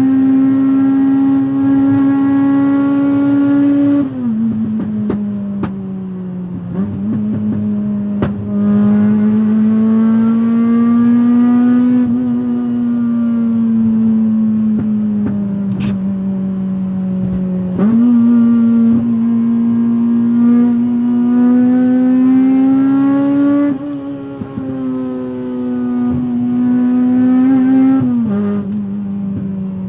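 Honda Civic EP3's K20 four-cylinder engine running under load on the move. Its pitch climbs and sags smoothly with the throttle and drops or jumps sharply at gear changes, several times.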